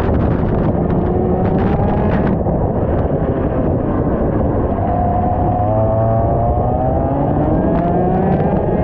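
125cc two-stroke kart engine at racing speed: its pitch drops off through the first few seconds, then climbs steadily from about five seconds in as the engine revs back up under acceleration. Heavy wind buffeting on the microphone runs underneath.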